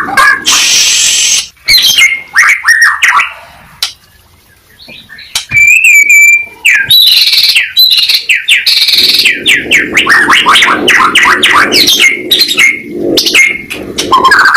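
White-rumped shama (murai batu) singing in full, varied song: a harsh rasping burst near the start, a clear held whistle after a short pause, then a long run of rapid repeated sweeping notes.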